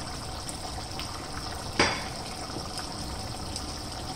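Chicken curry simmering in a pot on a gas burner: a steady bubbling hiss as the liquid cooks down. A single sharp knock about two seconds in.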